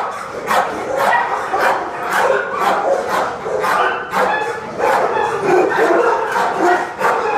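Dogs in kennel runs barking over and over, about two or three barks a second with no letup, some of them higher yips.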